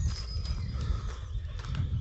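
Low, uneven rumbling and buffeting on a handheld camera's microphone during a walk, with a few soft knocks.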